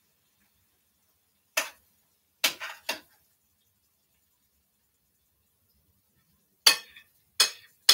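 Short sharp clinks of a kitchen utensil against a plate and pan while food is dished and arranged. There is one clink about one and a half seconds in, three in quick succession a second later, and two more near the end.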